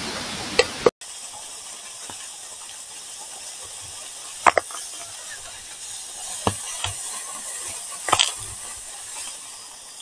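Steady rushing of a waterfall, a hiss with no distinct tones. It drops out for an instant about a second in and comes back a little quieter. A few short sharp sounds stand out over it near the middle and toward the end.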